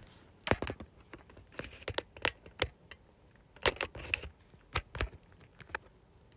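Irregular sharp clicks and taps close to the microphone, about fifteen over a few seconds, spaced unevenly like typing or tapping.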